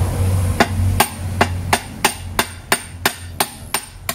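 Ball-peen hammer tapping a bearing onto an ESR1 racing camshaft wrapped in a rag: a steady series of sharp metal strikes, about three a second, starting about half a second in.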